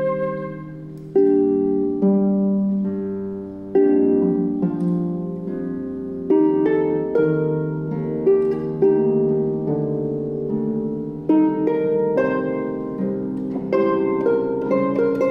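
Concert pedal harp playing alone: slow plucked chords and broken chords, each striking and then ringing and fading, a new one every second or two. A held flute note dies away right at the start.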